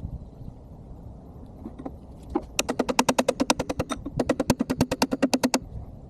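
Hammer striking a chisel on the steel backhoe boom cylinder, a fast even run of ringing metallic strikes, about ten a second, starting about two and a half seconds in and lasting some three seconds with a short break in the middle; the pace is fourfold sped up.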